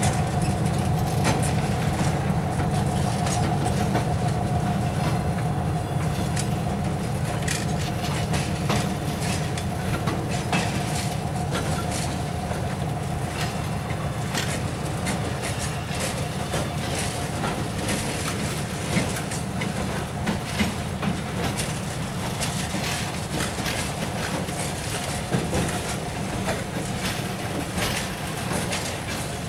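Loaded flatcars of a track-repair freight train rolling slowly past, with a steady low rumble and wheels clicking over rail joints. A steady whine fades out over the first dozen seconds, and the clicks grow more frequent in the second half.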